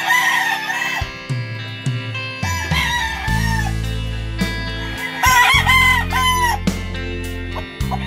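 Rooster crowing three times, over background music with a deep, sustained bass line.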